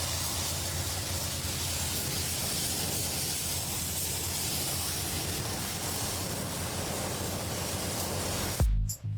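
A steady, even hiss, with a low tone of music underneath, cutting off abruptly near the end as beats of music come back in.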